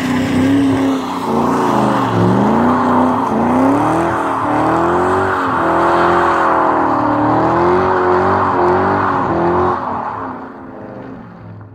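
Turbocharged BMW E30's M20 straight-six engine being driven hard, its revs rising and dipping again and again. The engine sound fades away near the end.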